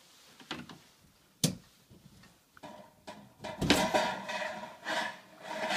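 Handling noises as a 30-amp three-prong dryer-style plug is worked loose and pulled from its wall receptacle: a sharp click about a second and a half in, then louder scraping and rattling of the plug and cord near the end.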